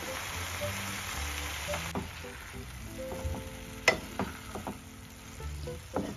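Boiled fusilli going into a pan of sizzling tomato sauce and being stirred with a spatula. The sauce hisses for the first couple of seconds, then the spatula scrapes and knocks against the pan, with the sharpest knock about four seconds in.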